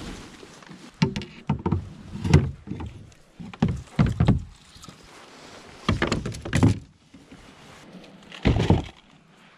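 Plastic fishing kayak being moved through brush: its hull knocks and scrapes against the ground and branches in four or five irregular bursts of thumps, with rustling of leaves between them.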